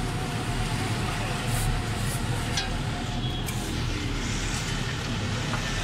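Steady low hum of background traffic and workshop noise, with a few faint metallic clinks as the flywheel bolts are fitted by hand.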